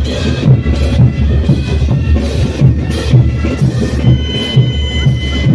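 Andean carnival dance music: wind instruments holding high notes over a steady drum beat, about two beats a second.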